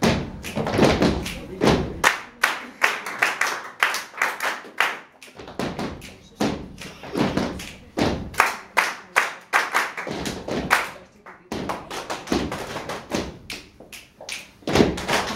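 Group body percussion: many people clapping hands together and striking their bodies with thuds, in a quick rhythmic pattern.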